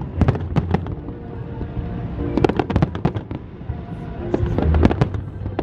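Aerial fireworks shells bursting in quick clusters of sharp bangs and crackles, with music playing underneath.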